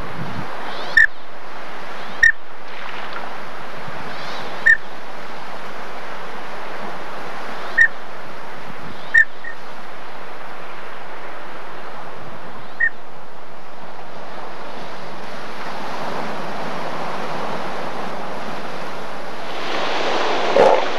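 Steady wash of surf and wind, swelling louder near the end. About six short, sharp, high chirps are scattered through the first half.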